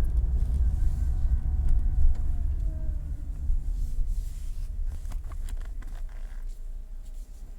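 2008 Ford Mondeo running, with a heavy low rumble and a faint whine that falls in pitch over the first few seconds, and a few sharp clicks about five seconds in.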